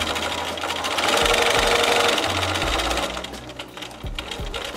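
Bernina sewing machine stitching a seam through quilted fabric, the needle running in a fast, steady rattle that gets louder for a couple of seconds in the middle.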